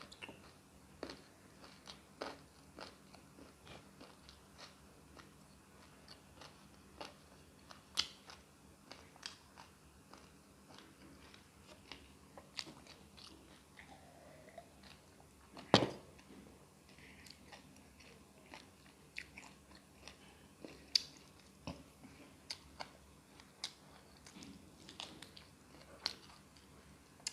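A person eating chicken gravy with rice and puri close to the microphone: irregular chewing and mouth clicks, with one louder click a little past halfway.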